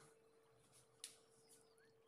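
Near silence: a faint steady hum, with one soft click about a second in and a few faint short rising chirps near the end.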